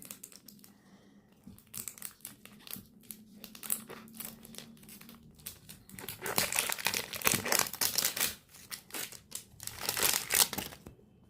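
Plastic packaging crinkling and being torn as a Mini Brands capsule is unwrapped by hand, with scattered crackles at first and a louder, denser stretch of crinkling in the second half.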